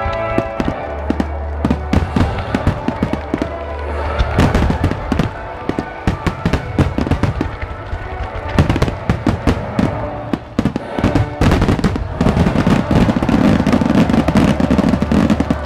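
Aerial fireworks shells bursting in quick succession, sharp bangs overlapping with crackle, with music playing alongside. From about twelve seconds in the bursts thicken into a dense, continuous barrage.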